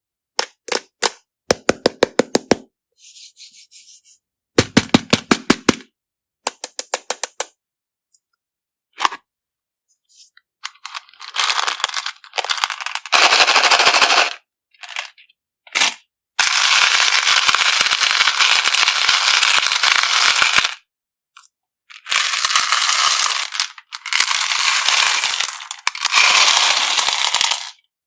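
Small hard candies clattering: first quick runs of sharp clicks as pieces drop one after another, then longer dense rattling rushes as streams of candy are poured, each part ending in an abrupt cut to silence.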